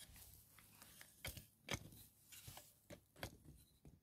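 Near silence with a few faint, scattered clicks and knocks; the mower's engine is not running.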